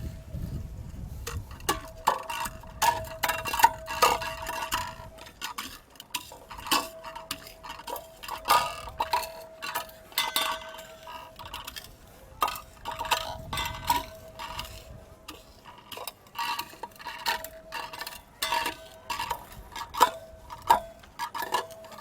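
Blackened roasted garlic cloves being pounded and ground into powder: many quick, irregular hard knocks and clinks, with a faint steady tone underneath for much of the time.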